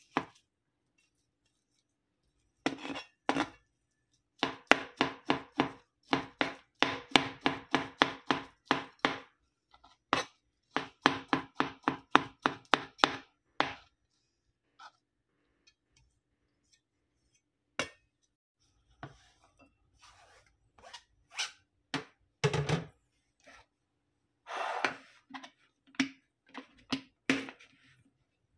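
Kitchen knife slicing imitation crab sticks on a cutting board, in rapid runs of strokes about four a second, a few seconds in and again from about four to fourteen seconds. Scattered knocks and scrapes follow in the second half.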